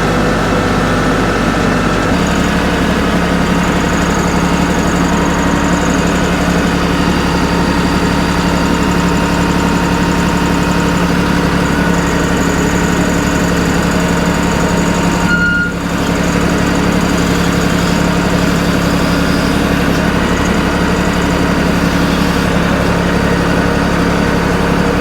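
Engine of a portable sawmill running steadily, its note changing about two seconds in and then holding even, with one brief dip near the middle.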